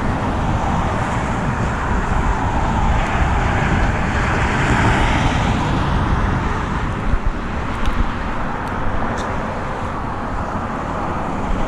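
Steady road traffic noise from vehicles crossing the bridge, swelling as a vehicle goes by around the middle, with a few faint clicks later on.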